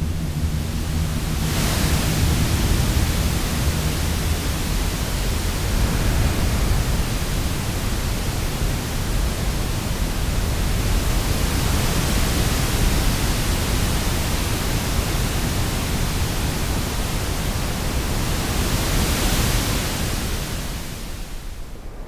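Large ocean waves breaking: a dense, steady rushing noise of surf that comes in about a second and a half in, swells near the end and then fades away.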